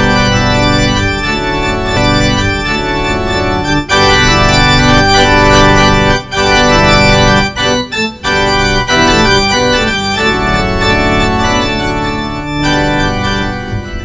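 Organ playing a processional of slow, held chords, with brief breaks between phrases and fading out at the end.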